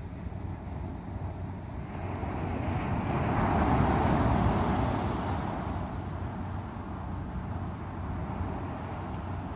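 Sea waves: one wave breaks and washes in, swelling to its loudest about four seconds in and fading over the next two seconds, over a steady surf noise.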